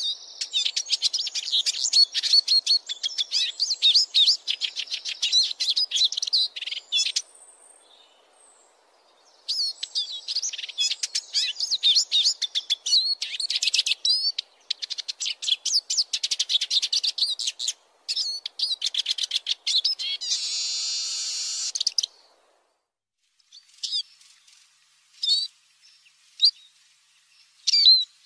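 Eurasian siskin singing: long runs of rapid, high twittering, broken by short pauses, with one drawn-out buzzy wheeze about two-thirds of the way through, then a few scattered single call notes near the end.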